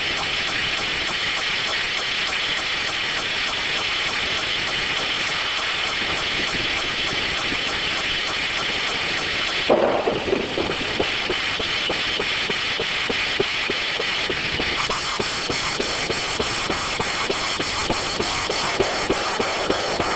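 Circular sawmill running, its saw noise steady and high-pitched. It changes suddenly with a knock about halfway through, followed by irregular clicking.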